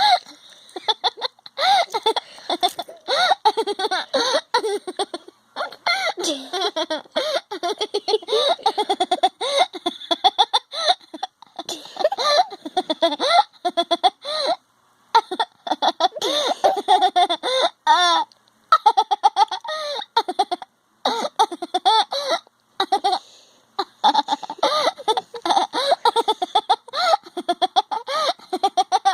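A person laughing hard and almost without pause, in quick pitched bursts broken by short catches of breath.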